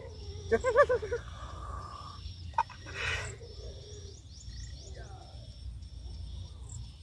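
Pond-side ambience: a steady high insect drone over a low wind rumble. A short wavering, bleat-like animal call comes just under a second in, and a brief rushing noise around three seconds.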